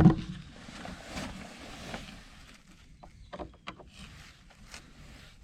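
A single loud thump right at the start, then a few faint scattered clicks and taps of something being handled.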